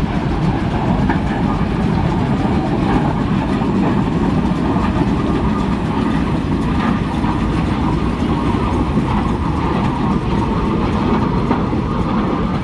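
Steady low rumble of a vehicle in motion, holding an even level throughout.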